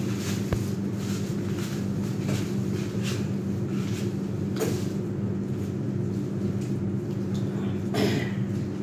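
A steady low hum throughout, with scattered short rustles and light knocks as stems and florist's materials are handled, the largest a leafy rustle about eight seconds in as a eucalyptus stem is lifted.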